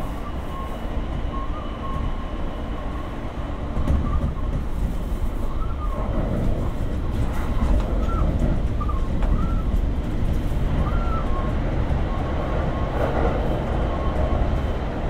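Kintetsu 5800 series electric train running, heard from on board: a steady rumble of wheels and running gear that grows louder about four seconds in, with a thin high squeal that wavers up and down.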